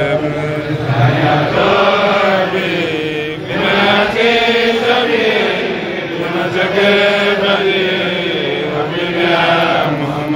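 A man's voice, amplified through a microphone, chanting an Islamic devotional recitation in long, melodic held lines.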